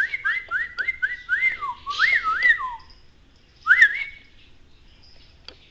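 Whistling: a quick run of about nine short rising whistles, then one more about a second later, with a few light clicks.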